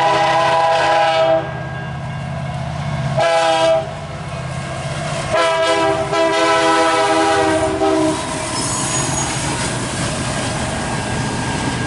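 Diesel locomotive air horn on a CN double-stack intermodal train sounding a blast that ends about a second and a half in, a short blast around three seconds, then a longer one from about five to eight seconds, over the low rumble of the locomotive. After that comes the steady clatter of the train's cars rolling past at speed.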